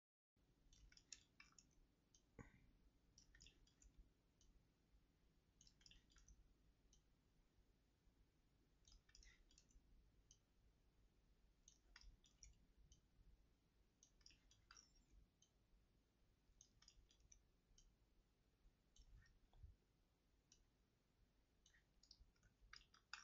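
Near silence broken by faint computer mouse clicks, single and in quick clusters every second or two.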